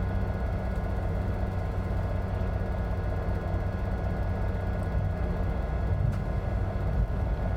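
Semi-truck's engine running, a steady low drone heard inside the cab.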